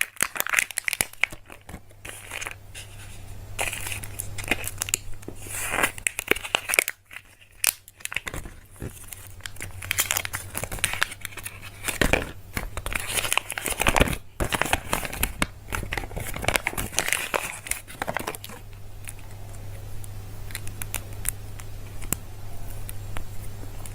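Foil and plastic wrappers of surprise eggs being torn open and crinkled by hand, in uneven rustling bursts with sharp snaps and clicks. The sound thins to lighter crackles near the end.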